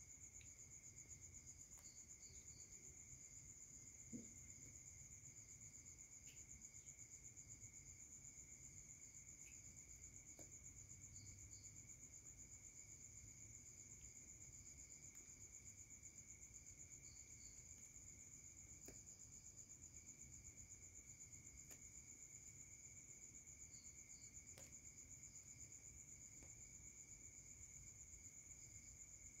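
Faint, steady, high-pitched trill of insects such as crickets, with short chirps every few seconds and a soft thump about four seconds in.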